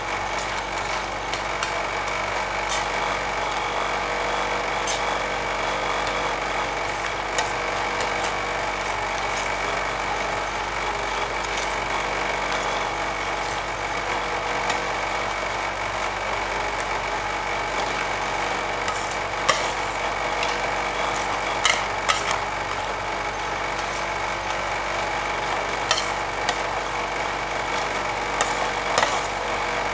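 Steady mechanical hum of an ice cream roll machine's cold plate running, with metal spatulas scraping over the steel plate through the ice cream mixture and a few sharp taps in the second half.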